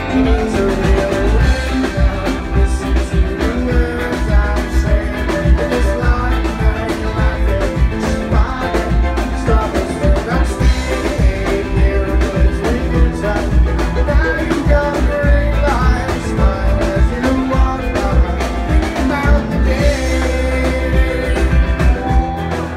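Live rock band jamming instrumentally: electric guitar, electric bass and drum kit playing together, heard loud and full from the audience.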